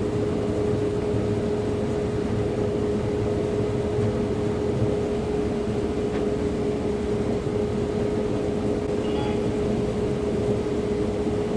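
Combine harvester running steadily while harvesting corn, a constant machine drone with a steady hum tone over a low rumble.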